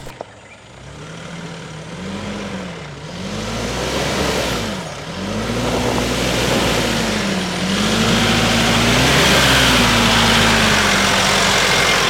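Nissan Navara PRO-4X pickup's diesel engine pulling the truck slowly up onto the grass, revs rising and falling again and again as it climbs, growing louder as it comes close.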